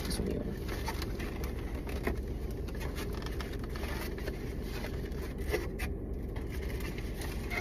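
Steady low rumble of a car cabin, with scattered light rustles and clicks as takeout bags and food containers are handled.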